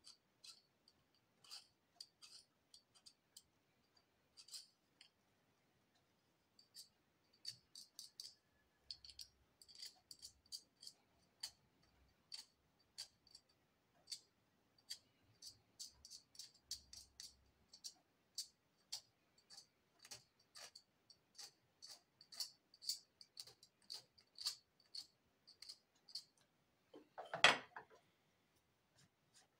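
A thin metal pick scraping and clicking against a small toothed metal tool held in the hand: faint, irregular light ticks, several a second. Near the end comes one louder knock, the loudest sound here.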